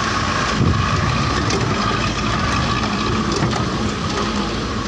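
Vehicle driving over a rough dirt track: steady engine and road noise with scattered rattles and knocks.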